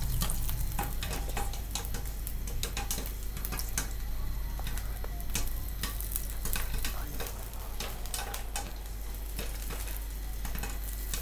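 Popcorn kernels sizzling and crackling in hot oil in a lidded pan, with many irregular sharp ticks as the kernels start to pop. A steady low hum runs underneath.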